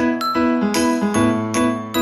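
Background music: a light melody of short ringing notes, each with a sharp start and a fading tail, about two to three notes a second.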